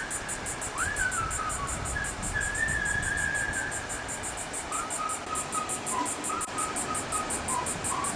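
A whistled tune of held notes and short slides over a fast, even high ticking of about six beats a second, with a low rumble of wind underneath.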